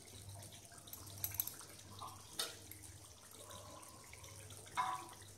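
Faint bubbling of thick mutton curry gravy simmering in a kadai on a gas burner, with a few soft pops and a brief louder sound near the end.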